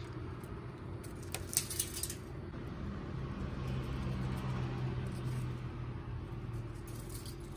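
A steady low mechanical hum, like a motor running, with short runs of light clicks about a second and a half in and again near the end.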